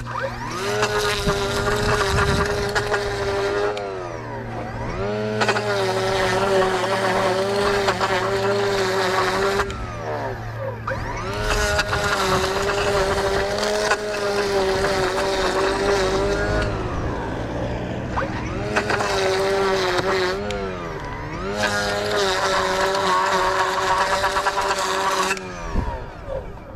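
Handheld lawn edger throttled up to full speed about five times, each run lasting a few seconds and winding back down in between, while edging a sidewalk.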